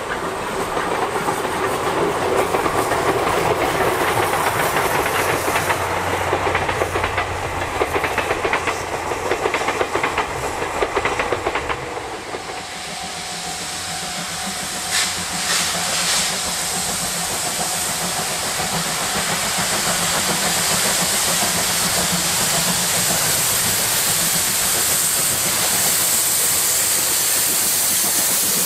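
Steam train hauled by C57 180, a two-cylinder Pacific steam locomotive: the coaches roll past close with wheels clattering over rail joints. About twelve seconds in the sound changes abruptly to the locomotive approaching from a distance, working hard and growing louder as it passes close near the end, with two short sharp sounds about fifteen seconds in.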